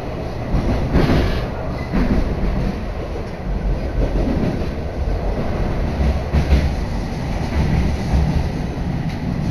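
Kagoshima Line commuter train running on the rails, heard from inside the carriage: a steady, loud low rumble with a few short knocks from the wheels on the track.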